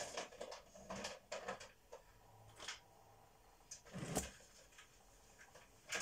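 Scattered light knocks, clicks and rustles of things being handled, at irregular moments, the loudest about four seconds in.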